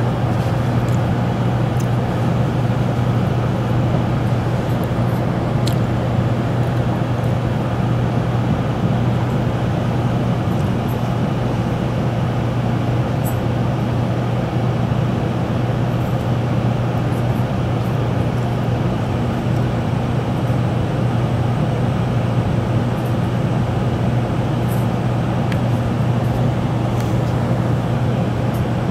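Shinkansen train's cabin noise as it slows along the platform coming into a station: a steady rumble with a constant low hum.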